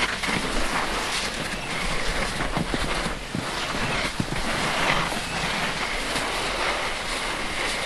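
Skis sliding over packed snow, a steady rushing hiss, mixed with wind on the microphone from moving downhill.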